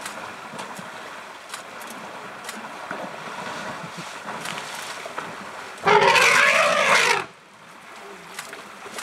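Elephants splashing and churning through muddy water, then about six seconds in a loud elephant trumpet lasting just over a second, aimed at the hippo in the water.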